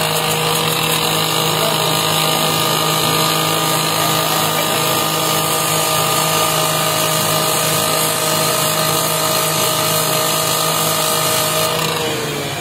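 An angle grinder's abrasive disc cuts through the steel of a crashed train coach. It runs with a steady whine at constant speed, then winds down near the end.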